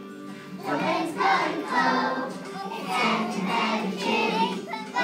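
A group of young children singing a song together over backing music, the voices coming in just under a second in.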